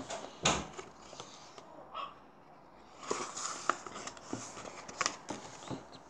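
Pages of a paper picture book being handled and turned: a sharp knock about half a second in, then light paper rustling with small taps in the second half.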